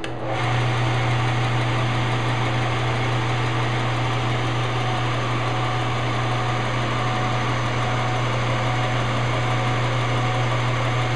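Central Machinery 4x36 belt and 6-inch disc sander switched on, its motor coming up to speed within about half a second and then running steadily unloaded, with a strong low hum under the even whir of the belt and disc. This is the machine's first run after being stripped, having its bearing assemblies reassembled and everything tightened.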